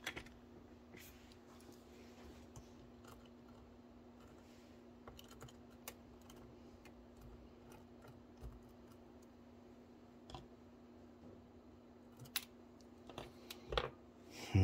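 Faint, sparse clicks of metal tweezers and small plastic parts as the couplers are worked out of an HO-scale model locomotive, over a steady low hum. The clicks come more often near the end.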